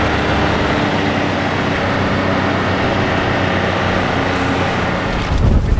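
Snowmobile engine running steadily under way. Just before the end the sound switches abruptly to a louder, choppier low rumble.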